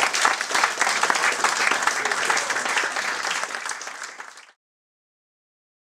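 Audience applauding, a dense patter of many hands clapping that gradually weakens and then cuts off about four and a half seconds in.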